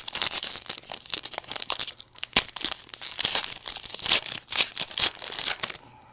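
Trading-card pack wrapper being torn open and crinkled by hand, in a rapid run of rustling with a sharp snap a little over two seconds in.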